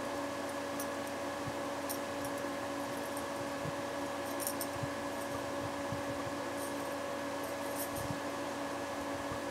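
Pedestal electric fan running with a steady hum and air noise. A few faint light clicks sound over it.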